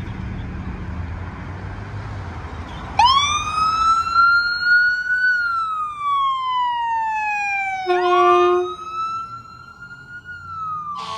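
Ambulance's electronic siren starting up about three seconds in with a wail, sweeping up and then slowly falling, over the rumble of the vehicle's engine and road noise. Near the end, a brief steady horn tone sounds, then the wail rises and falls once more as the ambulance passes.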